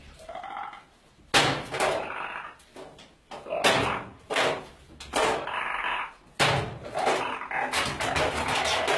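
A series of loud bangs, four of them a second or two apart, each dying away briefly, then a fast rattling clatter near the end.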